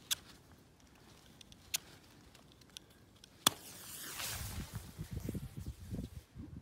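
Strike-head firecracker being scraped on a striker board: a few short sharp scrapes, then, about three and a half seconds in, the head catches and its fuse hisses for about two and a half seconds.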